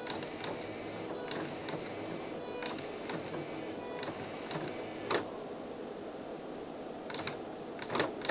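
Grundig FineArts CD11 CD player's motorised disc tray sliding out, a small loading motor and gear train running with a thin steady whine and light clicks. A sharp click about five seconds in, and more clicks near the end.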